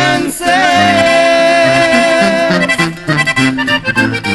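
Norteño instrumental break between sung verses: an accordion holds one long note, then plays quick runs, over a tuba bass line stepping back and forth between two notes.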